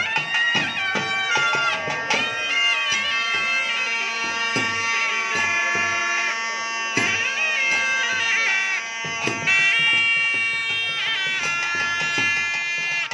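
South Indian temple procession music: double-reed pipes (nadaswaram) play a wavering, ornamented melody over a steady drone, with drum strokes here and there.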